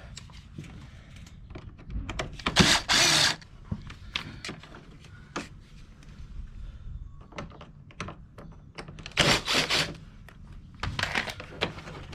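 Plastic body panels of a Honda Metropolitan scooter being worked loose by hand: scattered clicks and knocks of plastic and screws, with two short, louder scraping rustles, about three seconds in and again about nine seconds in.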